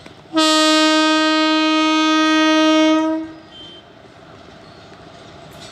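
Horn of an Indian Railways WAG-7 electric freight locomotive: one loud, steady single-note blast of about three seconds, starting shortly after the beginning and cutting off, followed by low, steady background noise.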